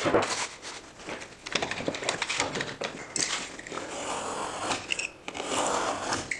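Utility knife scoring along the back paper of a 5/8-inch drywall sheet in long scratchy strokes, run over the same line again and again. The thick board needs double and triple scoring for a clean snap. Handling knocks and scrapes come in the first seconds as the board is turned over.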